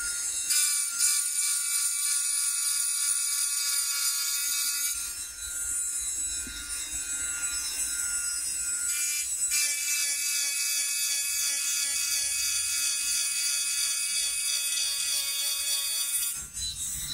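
High-speed rotary engraving handpiece whining as a small round bur cuts across a titanium knife handle scale, levelling the carved background in criss-cross strokes. The whine changes pitch a few times.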